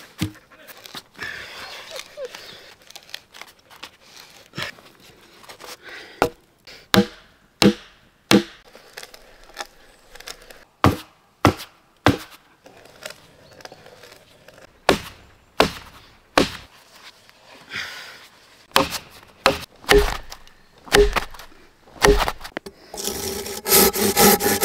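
A series of sharp wooden knocks and chops as fresh logs and stakes are worked with hand tools, the strikes coming singly and in quick runs. Near the end comes the rasp of a saw cutting through wood.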